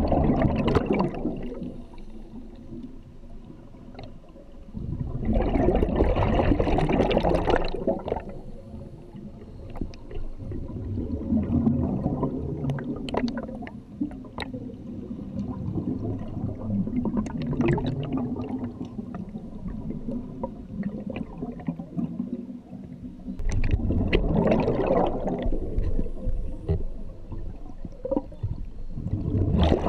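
Scuba divers' exhaled bubbles rushing and gurgling from their regulators underwater, in loud bursts of two to three seconds several times, with a quieter bubbling in between.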